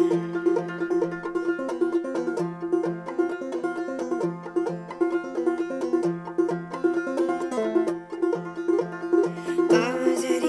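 Five-string banjo played solo in clawhammer style: a stream of quick plucked notes over a steadily repeated drone note, an instrumental passage between sung lines. A voice comes back in just before the end.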